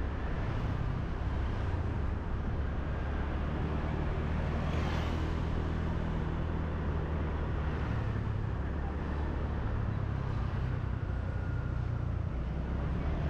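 Motorbike engine running steadily from the rider's seat, with wind and street traffic around it; a brief louder rush about five seconds in.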